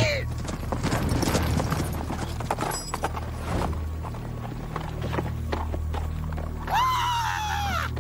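Cartoon sound effects: a rapid clatter of clicks over low background music, then, near the end, a cartoon dog's long scream that falls slightly in pitch.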